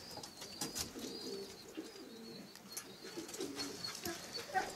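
Racing pigeons cooing quietly, repeated low coos, with a few faint clicks.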